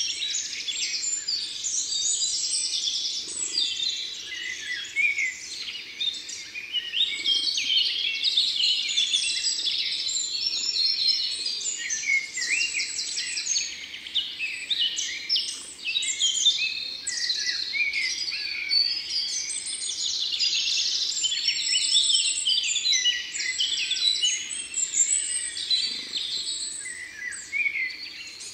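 Songbirds singing and calling together: a dense, unbroken chorus of chirps and rapid trills.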